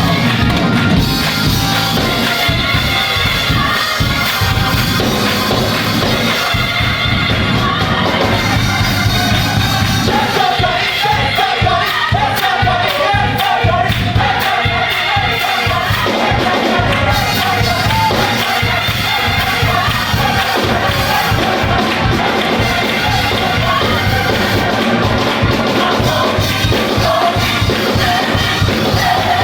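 Gospel choir and band performing, with a steady beat and sung voices throughout.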